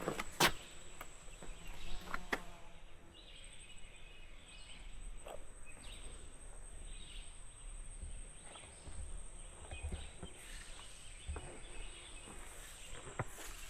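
A hiker's footsteps scuffing and crunching irregularly on a woodland trail, a few sharper steps near the start. Insects call steadily and high-pitched underneath.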